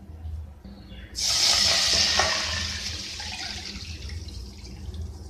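Milk poured from a jug into a nonstick kadhai. The splashing rush of the pour starts suddenly about a second in, is loudest at first, then slowly tapers as the pan fills.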